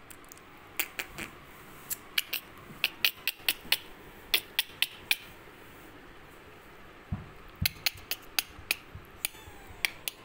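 Glass bangles clinking on a wrist as the hands move: irregular runs of sharp, bright clicks, pausing briefly in the middle, with a couple of low handling bumps. Near the end a faint falling mew from a newborn kitten.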